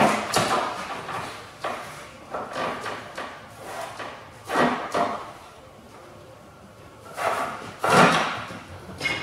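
Cord being pulled taut and tied around a motorcycle on a wooden pallet: irregular rustling scrapes and knocks, the loudest a pair near the end.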